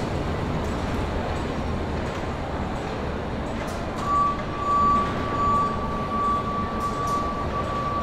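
Steady industrial workshop din, a noisy hum of machinery and activity on a factory floor. About halfway through, a steady single-pitch tone joins it and holds for around four seconds.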